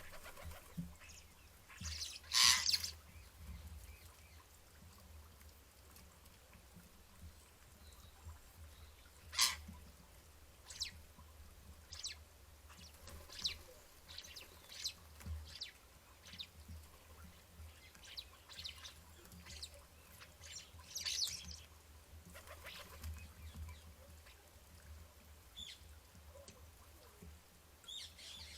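Garden birds chirping and calling in short, scattered notes, with a louder, harsher call about two seconds in and a sharp call near nine seconds, over a faint low rumble.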